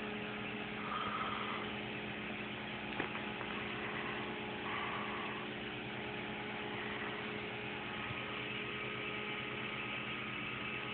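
Aquarium air pump humming steadily over the hiss of bubbles in the tank, with a faint click about three seconds in.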